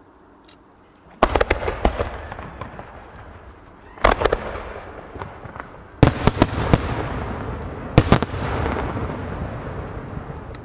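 Aerial firework shells bursting in four volleys about two seconds apart, each a cluster of sharp bangs followed by a fading rumble.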